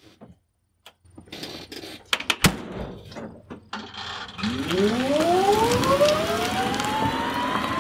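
A few clicks and knocks, then a door of the Westward MAX-3 electric three-wheeler shut with a sharp clunk about two and a half seconds in. From about four and a half seconds the vehicle's electric drive motor whines, rising steadily in pitch as it pulls away and gathers speed.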